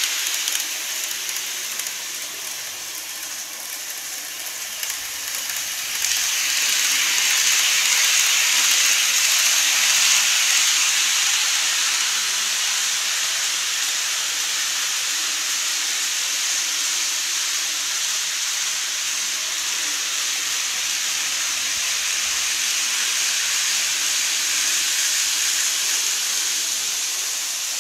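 Model trains running on the layout track: a steady rolling hiss of wheels on rail. It grows louder about six seconds in and holds.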